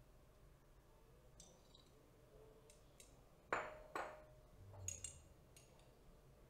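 Glass laboratory flasks clinking: two sharp clinks about half a second apart around the middle, each with a brief ring, then a softer clink a second later, against faint room tone.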